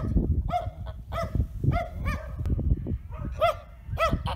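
Domestic geese honking repeatedly, a call about every half second, with several calls bunched together near the end.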